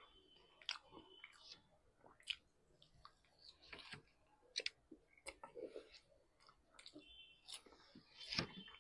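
Close-miked chewing of soft paratha soaked in curry gravy: wet mouth sounds with lip smacks and scattered short clicks.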